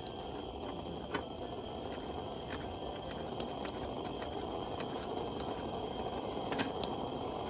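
Pressurized gasoline camping burner running with a steady roaring hiss, its generator hot and vaporizing the fuel after lighting, with a few light clicks about a second in and again near the end.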